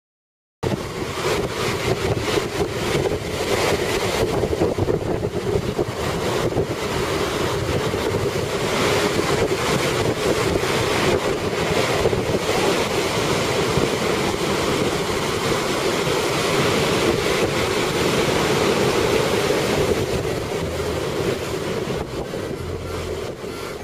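Heavy surf on a rough sea, waves breaking continuously, with wind buffeting the microphone. It starts abruptly about half a second in and eases off near the end.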